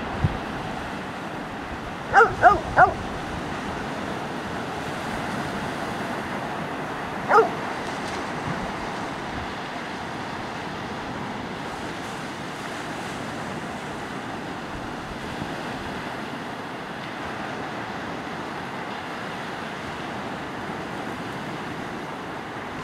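A dog barks three times in quick succession about two seconds in, then once more a few seconds later, over the steady wash of breaking surf.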